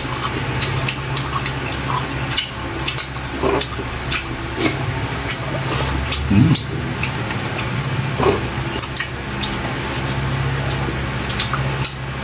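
Two people eating saucy octopus and rice with their hands: wet chewing, lip-smacking and squelching of fingers in sauce, heard as many small irregular clicks. A steady low hum runs underneath.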